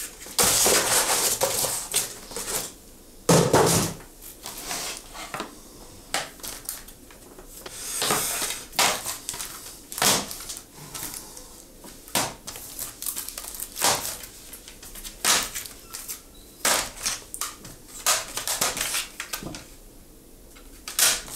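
A cardboard parcel being torn open and its packing handled: tearing, crinkling and rustling, with scattered clicks and knocks. The loudest tearing comes in the first two seconds and again briefly around three and a half seconds in, followed by shorter crinkles and taps.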